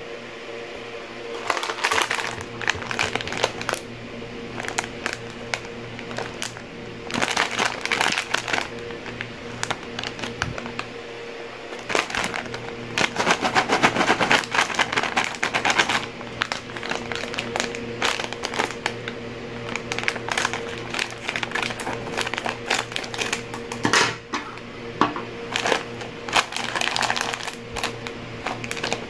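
Plastic snack bag of corn kernels crinkling in the hands in several bouts, loudest about halfway through, over steady background music.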